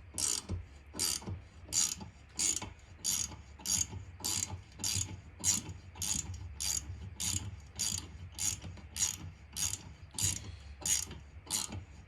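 Ratchet wrench clicking in a steady rhythm, a little under two clicks a second, as it turns a 14 mm × 1.25 thread tap into a chainsaw's damaged spark plug hole.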